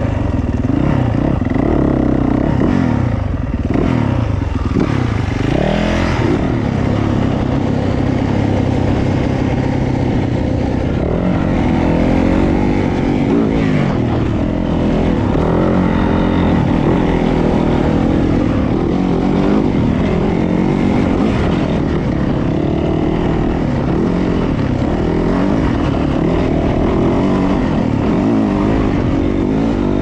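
2020 Yamaha YZ450F dirt bike's single-cylinder four-stroke engine under way, its pitch rising and falling repeatedly as the throttle is worked.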